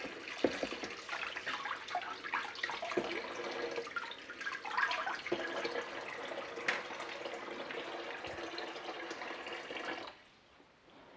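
Kitchen tap running into a plastic washing-up bowl of water, with splashes and knocks as a device is held and turned in the water. The running water stops suddenly about ten seconds in as the tap is shut off.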